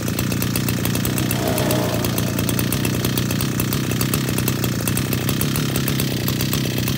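Mitsubishi T200 brushcutter engine, fitted with a 430 conversion kit, running steadily at an even speed.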